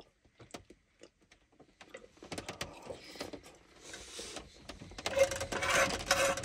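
Small clicks, ticks and rustles of food being handled and eaten. They are sparse at first and grow busier and louder over the last second and a half.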